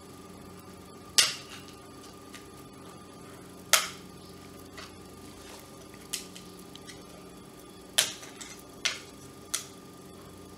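Sharp plastic clicks and snaps, about six at irregular intervals with the loudest about a second in, near four seconds and at eight seconds, as a screwdriver and fingers pry the snap-fit top cap off a hand blender's plastic housing.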